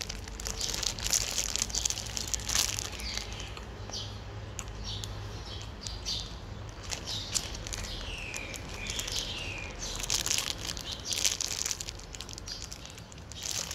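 Clear plastic bag crinkling in the hands and bites of egg-fried white bread being chewed, with short falling bird chirps several times in the background.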